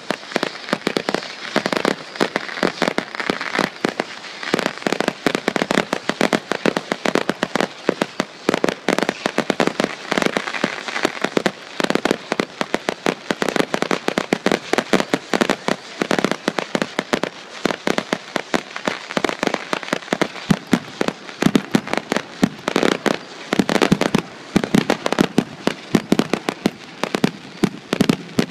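Fireworks finale barrage close to the launch site: a dense, unbroken run of shell bangs and crackle, many a second.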